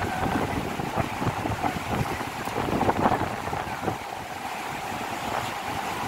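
Wind buffeting the microphone over the steady rush of the river below Akiu Great Falls, with a few footsteps on loose rock.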